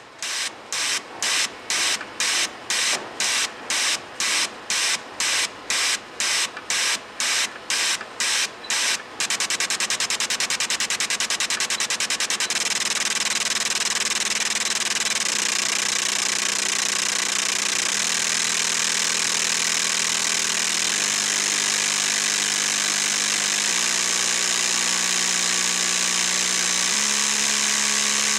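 Neljet high-frequency pulsed spray nozzle spraying mist. At first it sprays in distinct pulses about twice a second; about nine seconds in these merge into a continuous hissing spray with a fast flutter. From about twelve seconds in a low buzz rises in steps every few seconds as the pulse rate is raised from 20 to 70 cycles a second at 50% flow.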